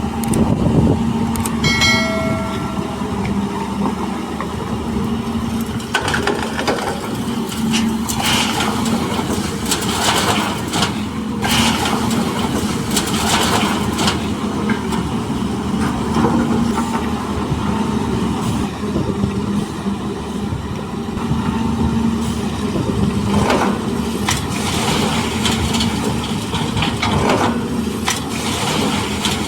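Heavy diesel engine of an excavator running steadily under work, with repeated knocks and scrapes as rock and earth are loaded into a dump truck. A short high-pitched squeal sounds about two seconds in.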